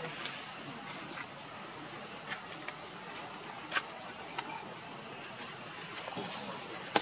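Forest ambience: a steady high hiss of insects, with a few short, high chirps scattered through it, the loudest a little before four seconds in.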